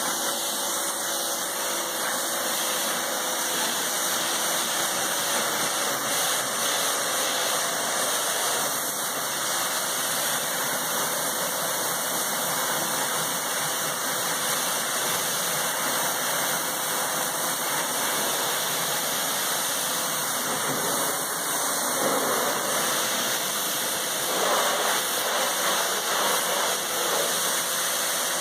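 Karcher 1900 psi electric pressure washer running, its pump motor humming steadily under the continuous hiss of the water jet spraying from the wand.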